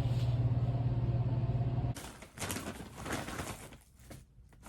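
Elevator car humming steadily on a long descent, cutting off abruptly about two seconds in. After that come a few soft, irregular rustling and handling noises.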